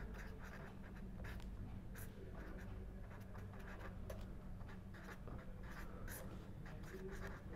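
Faint scratching of a pen on paper: a run of short strokes as an equation is written out by hand.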